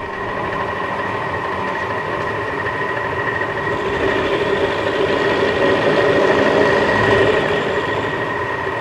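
A power machine tool running steadily with a whine while cutting a small flat, to start a hole for a Gits oiler. It grows a little louder midway, then eases off.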